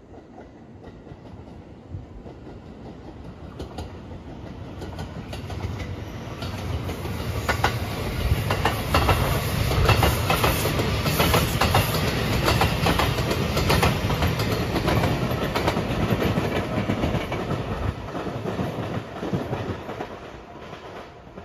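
Marine Liner electric train of 223-5000 series cars passing at speed, its wheels clicking over the rail joints. It grows louder as it approaches, is loudest about halfway through, and fades as it runs off near the end.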